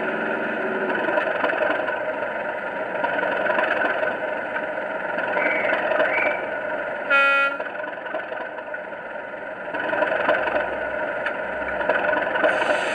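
Model Class 37 diesel sound from a Loksound V4 decoder playing a Legomanbiffo sound file through speakers in the loco body and fuel tanks: the English Electric engine running with the locomotive standing. A short horn toot sounds about seven seconds in; the engine then drops back and builds up again about three seconds later.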